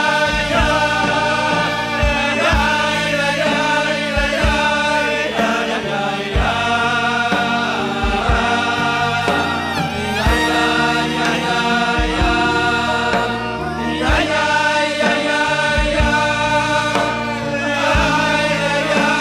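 Several men singing a Hasidic melody together through microphones and a PA, over a steady low beat.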